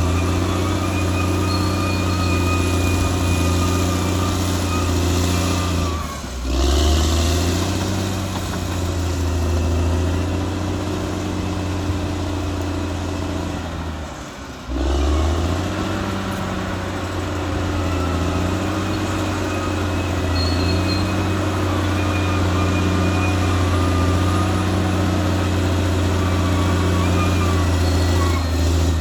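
Caterpillar D6R XL bulldozer's diesel engine running steadily, with a faint high whine over the low engine hum. The sound drops out briefly twice, about six and fourteen seconds in.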